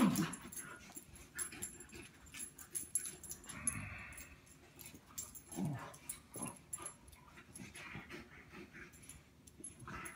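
A German Shepherd and a small white-and-brown dog play-fighting: a few short, low dog vocal sounds, about four and six seconds in and again near the end, among frequent light clicks and scuffling.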